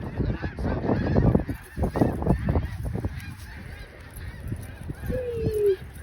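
A large flock of snow geese honking continuously, many short calls overlapping.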